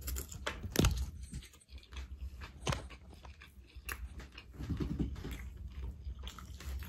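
A person chewing a mouthful of chow mein noodles close to the microphone, with wet mouth sounds and a few sharp clicks.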